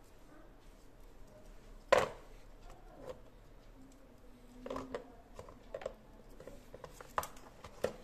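Scattered clicks and knocks of tools and small parts being handled, with one loud sharp knock about two seconds in and small clusters of clicks later.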